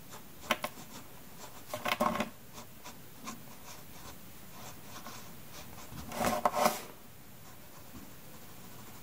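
Mechanical pencil scratching on paper as short lines are drawn, heard in a few short spells: about half a second in, around two seconds and around six seconds in.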